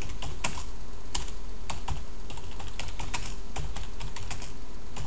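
Typing on a computer keyboard: quick, irregular key clicks, several a second, over a steady low hum.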